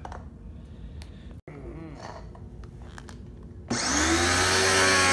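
A few light clicks, then about three and a half seconds in an electric pressure washer switches on: its motor and pump spin up quickly and run with a steady whine at reduced power through a triac speed controller, pushing water into a hose with a pressure gauge on it.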